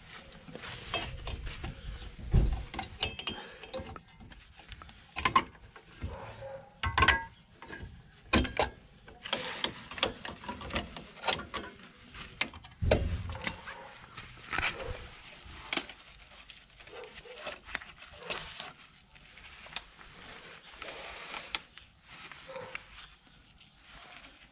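Metal-on-metal clicking and clanking of pliers against rear drum brake shoes, springs and hold-down pins of a Ford Transit MK6 as the shoes are taken off the backing plate, with a couple of heavier knocks.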